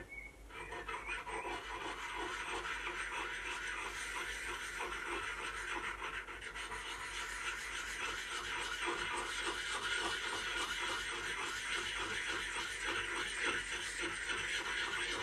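Axe edge being honed with the coarse side of a wetted hand-held sharpening stone: scraping strokes in quick succession, starting about half a second in.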